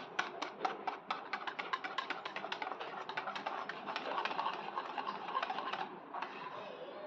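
A utensil stirring a flour-and-cocoa mixture into wet batter in a mixing bowl, clicking against the bowl several times a second, then turning to softer scraping about four seconds in.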